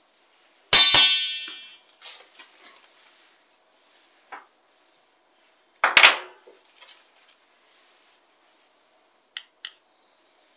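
A teaspoon clinking against a mixing bowl: two ringing clinks about a second in, another about six seconds in, and two light taps near the end.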